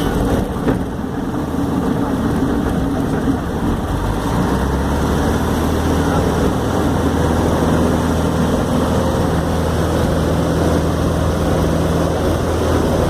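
Cessna 150's four-cylinder Continental O-200 engine and propeller running steadily, its note shifting about four seconds in.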